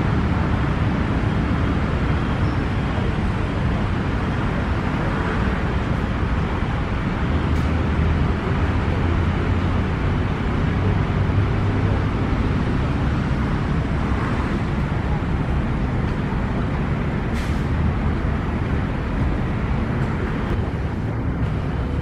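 Steady low rumble of city road traffic.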